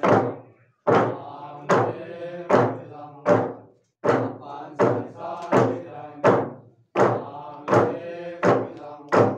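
Wooden log drum struck together by a row of men with wooden beaters in a slow steady beat, about one stroke every 0.8 seconds. Men's voices chant in unison between the strokes.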